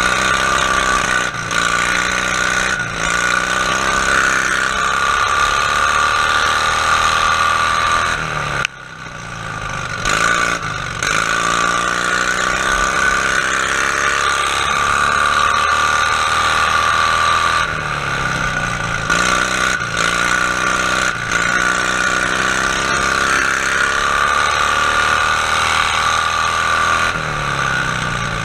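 Briggs & Stratton V-twin engine of a racing lawn tractor running hard under load, heard from the driver's seat. Its revs dip and climb back about four times, and near 9 s the sound briefly drops sharply before returning.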